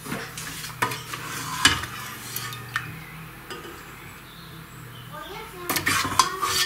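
Ceramic bowls and metal spoons clinking and knocking as the bowls are picked up and set down on a wooden counter: a few separate knocks in the first three seconds, then a quick cluster of clatter near the end, over a low steady hum.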